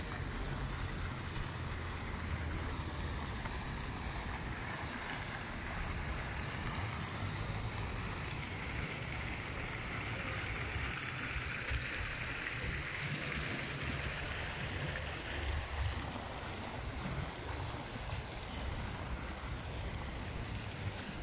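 Wind buffeting the microphone over a steady hiss of rushing water, which swells briefly near the middle.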